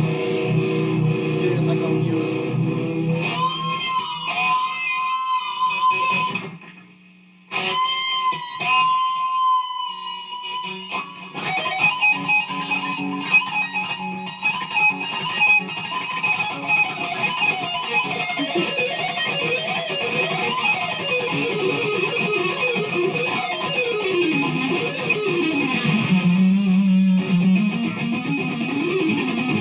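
Death metal playing from a vinyl record: distorted electric guitar with sliding, bending lead lines, dropping out for about a second around seven seconds in.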